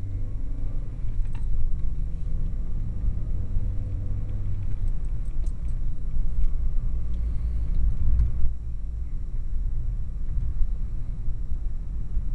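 Car driving along a road, heard from inside the cabin: a steady low rumble of engine and tyres, with an engine hum that fades about four seconds in and a few faint light rattles soon after.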